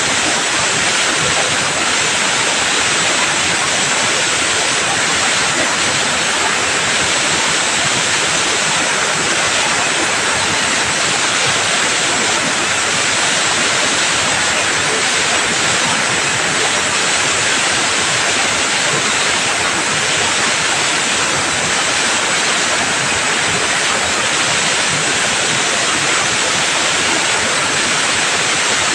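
A steady, loud hiss of a high-pressure cleaning jet spraying without a break.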